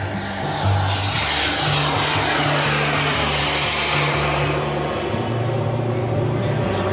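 Radio-controlled model jet making a low pass: its turbine gives a rushing whine that swells, sweeps in pitch as it goes by, then fades. A music track with a steady stepping bass line plays underneath.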